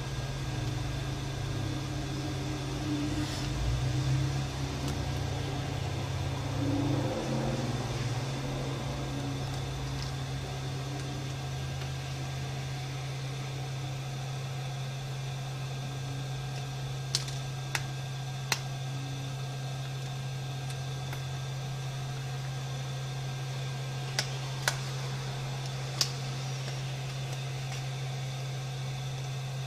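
Steady low hum of a fan or motor running at the repair bench, with small sharp clicks of hand tools working on a phone: three a bit over halfway in and three more near the end.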